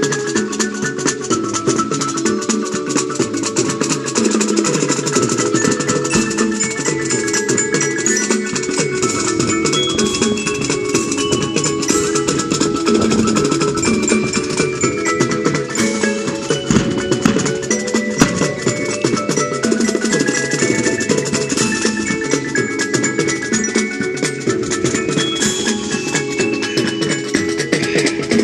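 Marching band playing a tune: drums keep a steady beat under short high notes and massed wind instruments.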